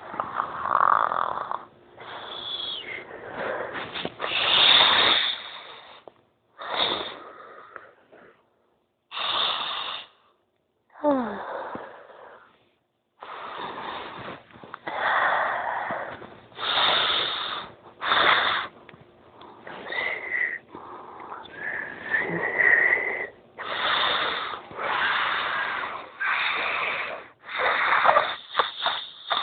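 A sleeping person snoring, loud rasping snores of about a second each coming irregularly with short pauses between. About eleven seconds in one snore slides down in pitch, and a whistling tone rides on the snores a little later.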